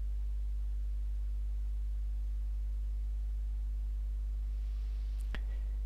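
Steady low hum of the recording chain under a pause in the narration, with a faint short tick about five seconds in.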